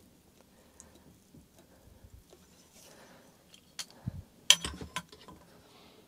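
A quiet stretch, then a few short clicks and knocks of parts and tools being handled on a workbench, the sharpest click about four and a half seconds in, as the damper is readied to be pumped up with air.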